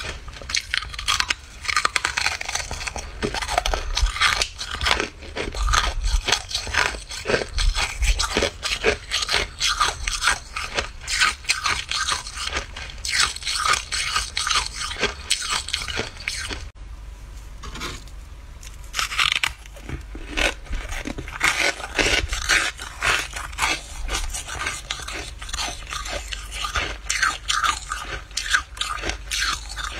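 Dry freezer frost being crunched and scraped: a rapid run of crisp crunches, with a short pause a little past halfway.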